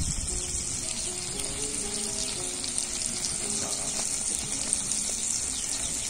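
Lamb steaks and pieces of lamb fat frying in a large black iron pan: a steady high sizzle with faint scattered crackles.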